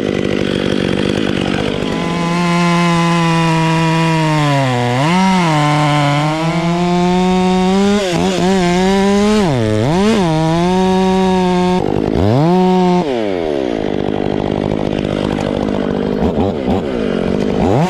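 Chainsaw running at full throttle through the back cut of a tree being felled, its pitch dipping several times as it bogs down in the wood. About thirteen seconds in it comes off the throttle and winds down, then revs up again near the end.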